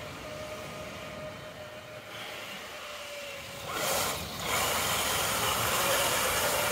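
Electric RC crawler trucks running, with a thin steady motor-and-gear whine for the first few seconds. About four seconds in it gives way to louder splashing as the trucks drive through shallow meltwater.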